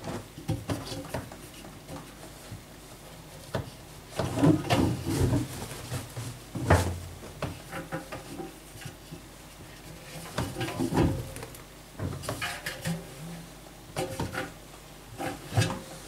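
Damp laundry being pulled out of a front-loading washing machine's stainless steel drum by hand. Cloth rustles and rubs against the drum, with irregular knocks and clunks in several short clusters.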